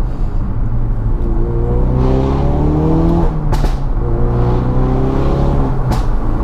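Ford Focus RS Mk3's turbocharged 2.3-litre four-cylinder through a valved Scorpion cat-back exhaust, heard from the cabin with the windows partly down: the engine note rises twice under acceleration, with a short sharp crack from the exhaust as each pull ends.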